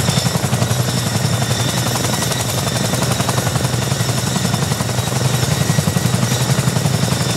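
RAF CH-47 Chinook's tandem rotors turning at speed on the ground, a fast, steady chop, with a steady high whine from its twin turboshaft engines.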